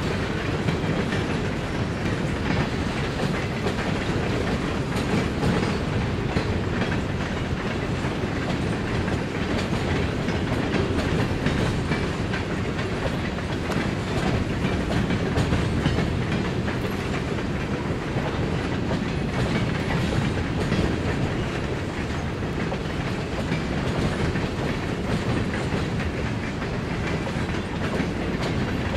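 Freight train boxcars rolling past: a continuous, even rumble of steel wheels on the rails.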